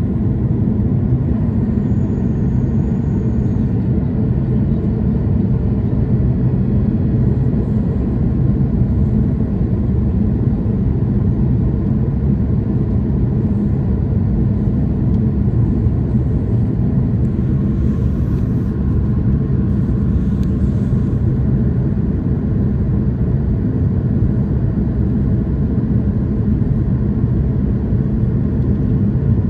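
Steady low rumble of a jet airliner's engines and airflow heard inside the cabin from a window seat, during the descent.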